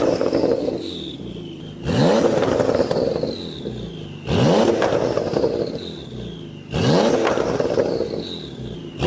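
Porsche 911's flat-six boxer engine with a sports exhaust, revved in sharp throttle blips about every two and a half seconds. Each blip rises quickly in pitch, then the revs fall away slowly as the note fades.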